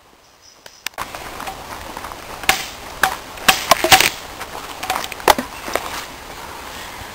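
Footsteps on a leafy woodland dirt path, with irregular sharp snaps and knocks like twigs breaking, over a steady outdoor hiss that starts about a second in.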